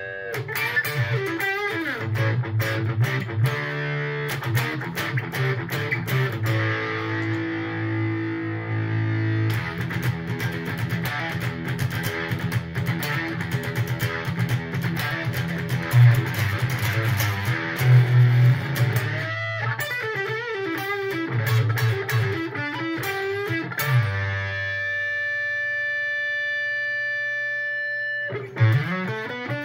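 Electric guitar played through a NativeAudio Fry Bread fuzz pedal: fuzzy riffs and strummed chords with some bent, wavering notes. Near the end a chord is held ringing for a few seconds, then a new note is struck and bent upward.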